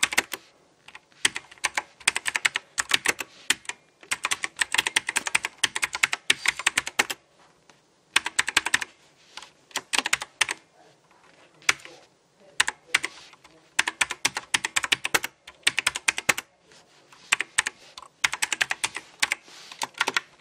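Logitech G Pro X mechanical keyboard with clicky blue switches being typed on: fast runs of sharp key clicks in bursts of a second or two, with brief pauses between them.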